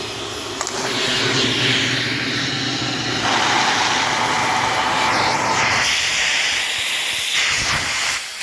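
Shark vacuum cleaner running with the crevice tool fitted, a loud rushing hiss of sucked air that shifts in pitch several times as the narrow nozzle is moved and partly blocked. The sound drops off suddenly near the end.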